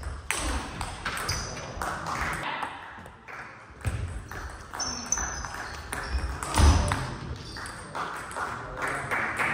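Table tennis rally: a quick series of sharp clicks and pings as the celluloid-type ball is struck by the rackets and bounces on the table.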